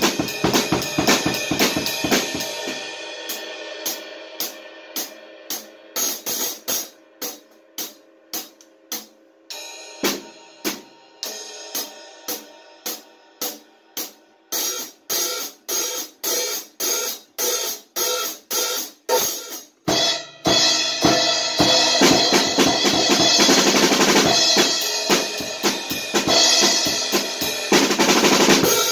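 Drum kit played: a busy groove with cymbals, then a stretch of sparse single strokes about two a second with no kick drum, then about twenty seconds in the full kit comes back in loud, with a steady wash of cymbals.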